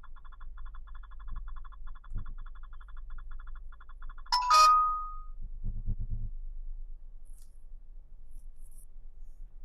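Rapid electronic beeping, several short beeps a second, that stops about four seconds in with a sharp click and a short ding, over a low steady hum.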